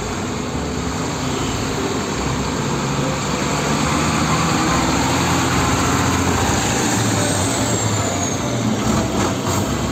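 A Sinotruk HOWO concrete mixer truck's diesel engine running as the truck drives past in traffic, with tyre and road noise; it grows louder through the middle as the truck passes close, then eases off.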